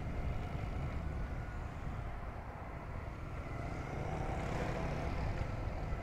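Steady road noise while riding along a road: low wind rumble on the microphone and a faint, even vehicle engine hum, swelling slightly about four to five seconds in.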